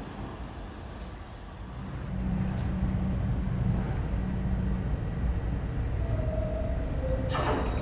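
A New York City subway train in the station: a low rumble that swells about two seconds in, with a steady hum for a few seconds, brief higher tones, and harsh bursts of noise near the end.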